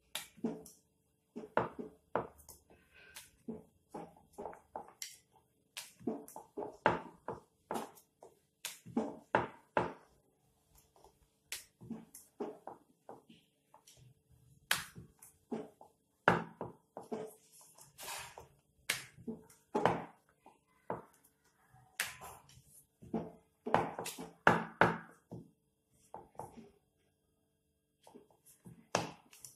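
Wooden rolling pin rolling out dough on a round wooden rolling board: short bursts of knocking and rumbling with each back-and-forth stroke, repeated every second or two, over a faint steady hum.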